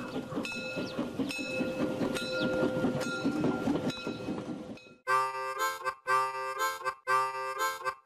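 Background music: a noisy, rhythmic opening with regular clicks gives way, about five seconds in, to a harmonica playing held chords, each about a second long with short breaks between.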